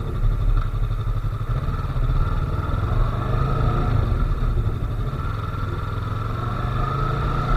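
Yamaha R3's parallel-twin engine running steadily as the motorcycle is ridden along the road, heard from the rider's onboard camera.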